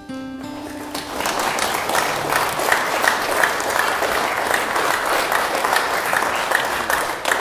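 Congregation applauding, breaking into loud, dense clapping about a second in and keeping on steadily. A few held notes of guitar-like music sound at the start.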